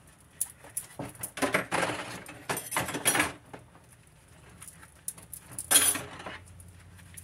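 Dishes and cutlery clinking and rattling in a kitchen sink during hand washing-up, in several short bouts, with a sharp, louder clatter about six seconds in.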